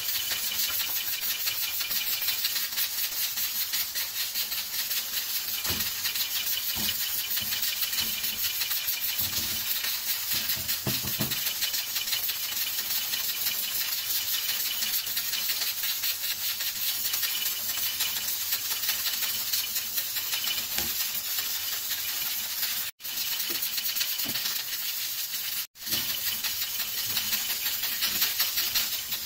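Steady hissing from the gas stove, where a chapati cooks on a tawa beside a pressure cooker. A few soft knocks come about six to eleven seconds in, and the hiss cuts out briefly twice near the end.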